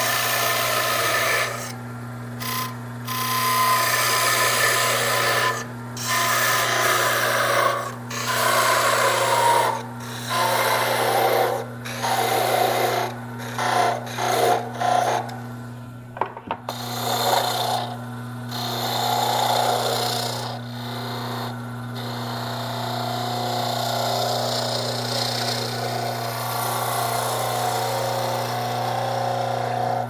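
Wood lathe running with a steady motor hum while a turning tool cuts a spinning wooden knob blank, giving a rough scraping hiss. The cuts come in repeated passes a second or two long with short breaks, turning into a longer, softer cut after about 16 seconds.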